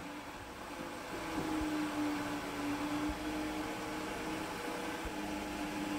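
A steady electrical hum on one pitch, growing stronger about a second in, over faint room hiss.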